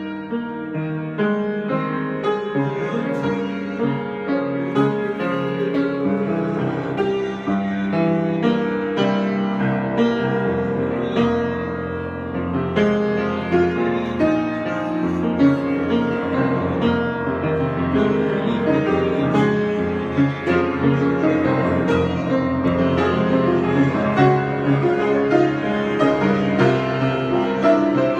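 Piano improvisation: a continuous flow of chords and melody notes, with the low bass notes growing stronger a few seconds in.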